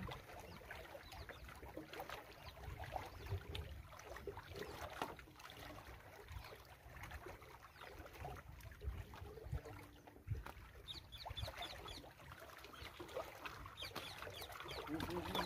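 Small lake waves lapping against shoreline rocks, with wind rumbling on the microphone. A few faint high bird chirps come in about eleven seconds in.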